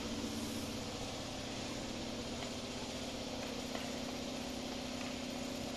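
Steady machinery hum with a constant low drone and an even hiss above it, unchanging throughout.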